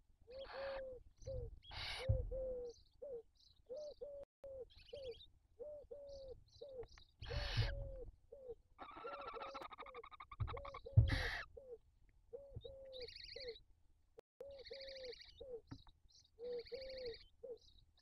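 Barn owls calling in the nest: a steady series of short low notes, about two a second, with raspy, hiss-like calls over them and three louder harsh screeches at about 2, 7.5 and 11 seconds.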